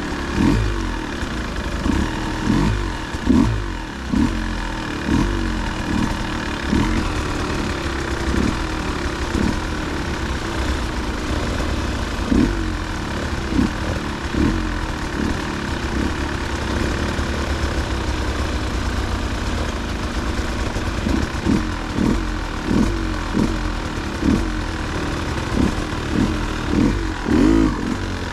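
Dirt bike engine running at low speed under short, repeated blips of throttle as the bike picks its way over rough, rocky trail. The blips come in clusters, with a steadier stretch of engine in the middle.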